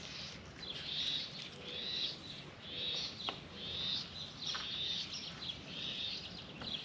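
A bird peeping over and over: short, high, arched calls about once a second, with one faint click about three seconds in.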